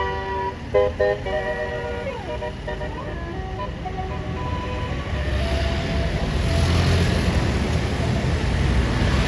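A bus's multi-note 'basuri' telolet air horn plays a short tune that fades out within the first few seconds. About halfway through, the bus engine's low rumble and road noise build up as it comes past.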